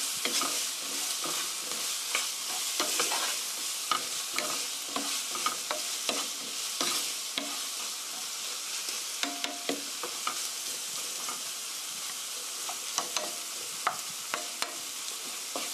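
Chopped tomatoes, onion and garlic sizzling in oil in a frying pan, with a steady hiss, as a wooden spatula stirs them. The spatula scrapes the pan and knocks against it with frequent short clicks.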